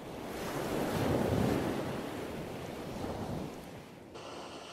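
Intro logo sound effect: a rushing whoosh of noise, like surf or wind, that swells over the first second or so and fades away about four seconds in.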